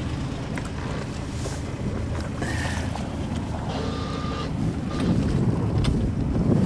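Wind rumbling on the microphone over water washing past a small sailboat's hull while it is under way.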